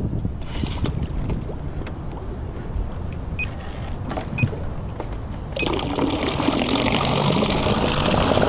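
An electric trolling motor starts about five and a half seconds in, and its propeller churns the water surface in a steady, rising wash. The shaft is too short for the boat, so the prop runs near the surface. Before it starts there is only a low wind rumble and a few small clicks.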